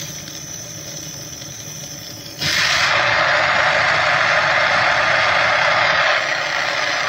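Glassblowing bench torch flame hissing steadily; about two and a half seconds in it turns suddenly much louder as the flame becomes a long, sharp jet, easing off slightly near the end.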